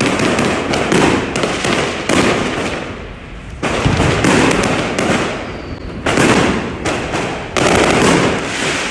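Chinese New Year fireworks and firecrackers going off all around without a break: dense crackling with repeated loud bangs, the sharpest jumps coming about three and a half, six and seven and a half seconds in.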